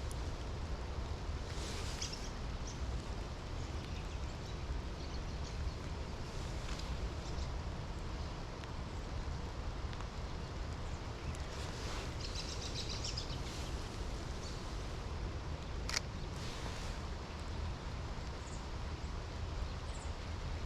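Steady outdoor ambience of soft rain and wind in trees, with a low rumble and a few distant bird calls, most noticeable about two seconds in and again around twelve to thirteen seconds. A single sharp click comes about sixteen seconds in.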